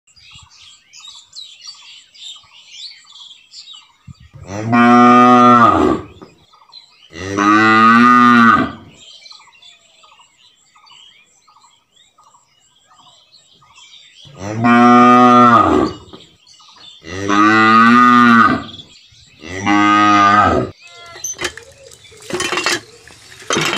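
Cows mooing: five long, loud moos, two in the first half and three in the second, over faint bird chirping. A few short clicks come near the end.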